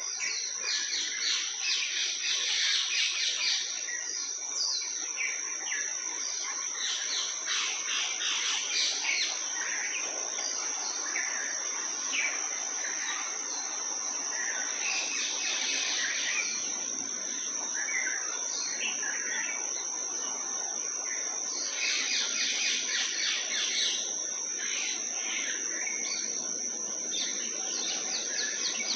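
Several birds chirping and twittering in quick, trilled runs, busiest about a second in and again near the middle and later on, over a continuous high-pitched tone.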